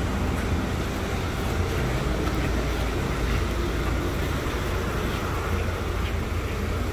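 Heavy rain falling, an even hiss over a steady low rumble.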